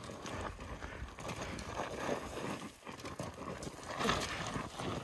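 Hiking boots crunching and sliding down loose scree in a run of irregular gravelly steps, with a louder scrape of sliding stones about four seconds in.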